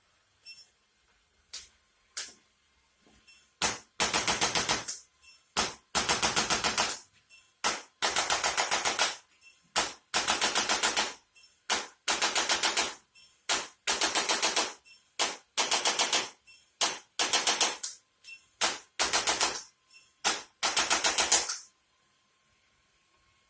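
Handheld electric percussion device used on the body, firing rapid taps in bursts of about a second with short pauses, about ten bursts in a row after a few single clicks.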